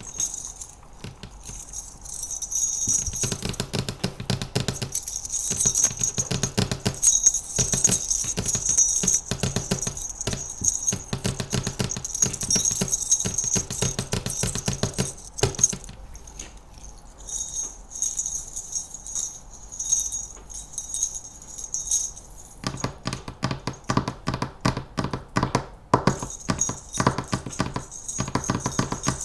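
Rapid fingernail tapping from manicured nails mixed with small jingle bells jingling, the bells ringing out in long stretches and the taps going on throughout.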